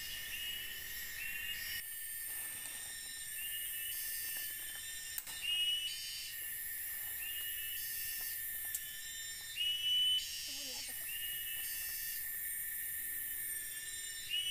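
Forest insect chorus: a steady high drone with a short, slightly rising chirp repeated about once a second, and a higher buzzing that comes and goes every second or two.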